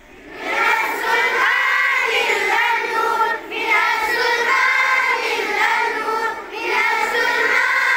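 A group of schoolchildren singing a Kashmiri prayer song together in unison, coming in about half a second in and pausing briefly twice between lines.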